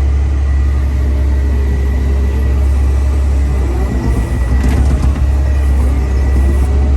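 Cat M316C wheeled excavator's Tier 3 diesel engine running steadily, with a faint steady high whine over it and an uneven stretch about four seconds in.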